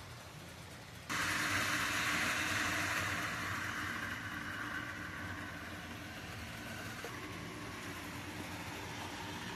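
HO scale model freight train running on the layout's track: a steady mechanical running noise with a low hum under it, starting abruptly about a second in, then slowly easing.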